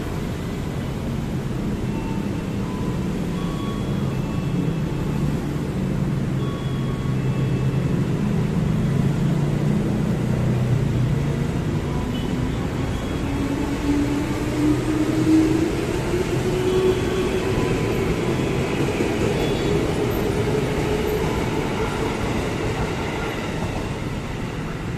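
KRL Commuter Line electric train pulling away from the platform. Its steady running noise carries a whine that rises in pitch through the second half as the train gathers speed.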